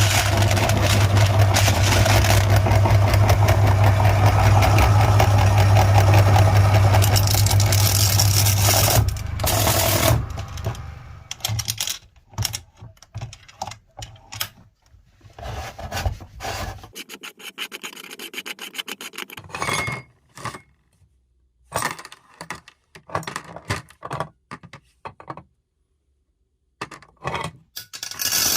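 Meat grinder motor running with a steady hum while it crushes glass marbles, grinding and crunching. About ten seconds in the motor dies away, leaving scattered clicks and rattles with short silent gaps.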